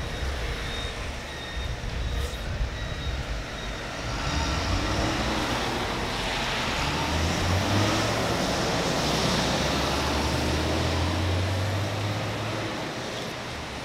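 Road traffic passing on a wet road: engine rumble and tyre hiss swell from about four seconds in, hold, and ease off near the end. A bus and a car are among the vehicles going by.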